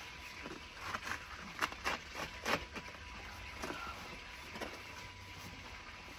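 Utility knife slitting packing tape and corrugated cardboard along the seam of a large flat shipping box: a string of irregular, short scratchy cuts and crackles.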